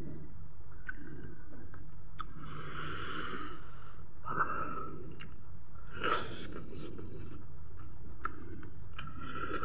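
Close-up chewing and wet mouth sounds of a man eating fried chicken and rice with his fingers, with scattered clicks and smacks and breathy rushes about three and six seconds in.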